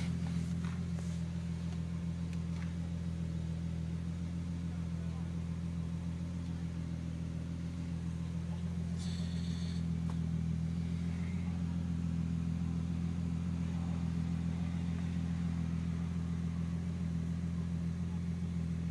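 Single-turbo Toyota Supra inline-six engine idling steadily, heard from inside the cabin. A brief high-pitched sound comes in about nine seconds in.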